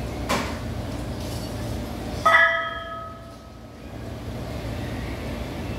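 A weight plate hits steel with one loud metallic clang about two seconds in, ringing for about a second, after a lighter knock near the start. A steady low hum runs underneath.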